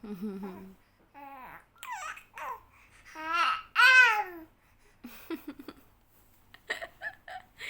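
A two-month-old baby cooing: a few short vocal sounds with rising and falling pitch, the loudest about three to four seconds in, followed by a few faint clicks.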